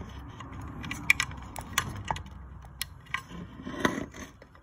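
Small clicks, taps and scraping of hands handling a cable connector and plastic parts at the circuit board of a variable-speed pool pump's drive, as the inverter cable is plugged back in; a few sharper ticks stand out at irregular intervals.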